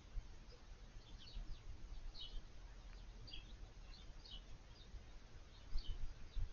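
A small bird chirping over and over, short high chirps about twice a second, over a steady low rumble, with a few low thumps near the end.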